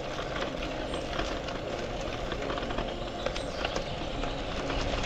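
Brompton folding bike rolling along a gravel path: steady crunch of the tyres on gravel and rattling of the bike, with many small clicks throughout.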